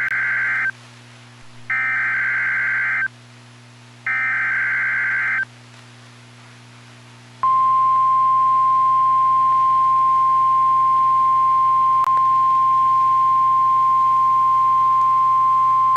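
NOAA Weather Radio Emergency Alert System (SAME) header: three short bursts of digital data tones, about a second apart. After a pause, the steady 1050 Hz warning alert tone sounds for about nine seconds. Together they signal a severe thunderstorm warning coming on air.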